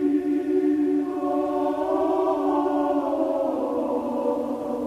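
Choir singing slow, long-held notes as background music. Higher voices join a low sustained note about a second in and shift again after about three seconds.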